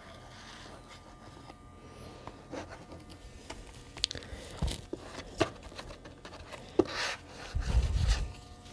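Plastic spreader scraping and rubbing over a canvas, spreading a wet white acrylic base coat. About halfway in come several sharp clicks, and near the end a denser scrape with a dull low knock.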